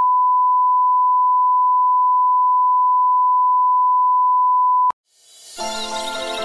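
Steady 1 kHz reference test tone, the line-up tone that goes with colour bars, which cuts off sharply about five seconds in. Soft music fades in near the end.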